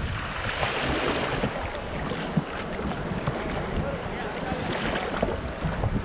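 Rushing whitewater of river rapids, with wind buffeting the microphone and one brief knock about two and a half seconds in.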